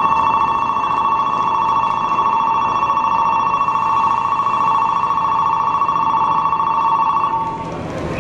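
Electronic platform departure bell ringing in a fast, steady trill, stopping near the end: the signal that the train's doors are about to close and it is ready to depart.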